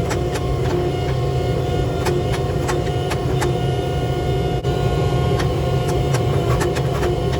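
A motor-driven machine running steadily with a constant hum, with light clicks scattered irregularly through it.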